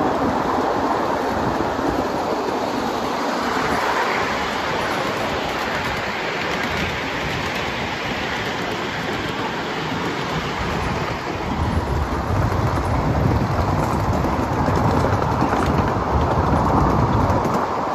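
A 7.5-inch gauge ride-on live steam train running along its track: a steady rushing, rolling noise of the wheels on the rails. It grows a little louder and heavier in the low end about two-thirds of the way through.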